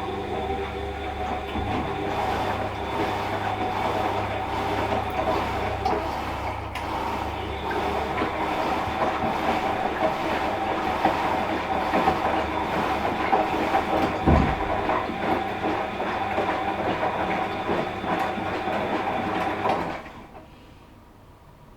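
Washing machine running with a steady whine and a rattling clatter, a single low thump about 14 seconds in, then cutting off sharply near the end, leaving a faint hum.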